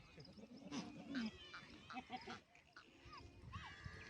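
Goats bleating, with one low drawn-out call about a second in among shorter calls and scattered knocks.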